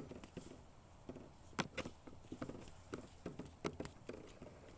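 Light, irregular taps and clicks on a hard surface, about a dozen, with the sharpest knock about one and a half seconds in.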